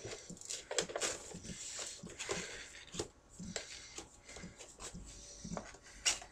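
Cardboard and plastic toy packaging rustling and crinkling, with many irregular clicks and scrapes, as a stubborn action-figure box is worked open by hand.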